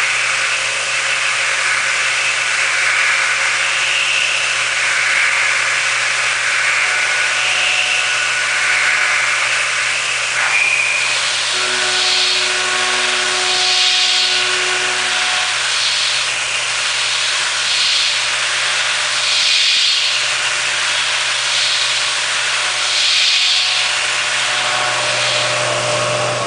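Deckel Maho CNC milling machine cutting at high speed: a steady hiss and hum with several spindle tones, and a cutting noise that swells and fades every second or two as the tool makes repeated passes.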